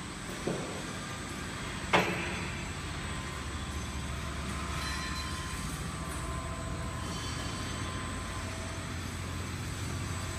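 Truck loading belt conveyor running with a steady low hum. Two knocks come near the start, the second louder.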